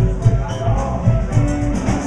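A band playing music with a steady drum beat over bass and guitar.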